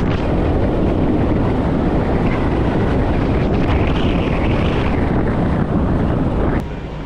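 Wind buffeting the microphone from a moving van, with road noise beneath. It drops sharply quieter about six and a half seconds in.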